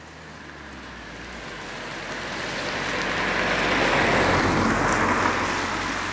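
A road vehicle passing by: tyre and engine noise swelling steadily to a peak about four seconds in, then fading away.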